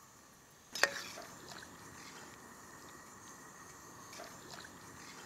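A sharp metal knock with a brief ring just under a second in, then a perforated metal ladle stirring the watery chicken curry in a large aluminium pot: faint sloshing with small clicks.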